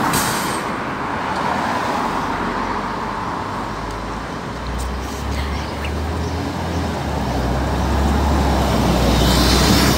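Articulated LiAZ city bus pulling away from a stop. Its engine hum swells about halfway through and grows louder as it drives off, over steady street traffic noise.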